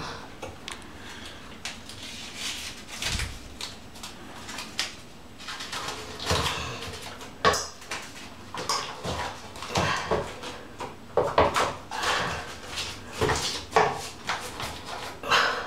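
Blue painter's tape being peeled off the roll and pressed around the rim of a ceiling light fixture: irregular short rasps, crinkles and taps of tape and handling.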